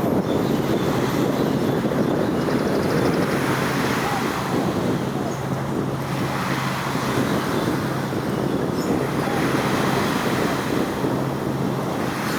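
Wind rushing on the microphone over a steady rumble of road traffic, with a constant low hum underneath.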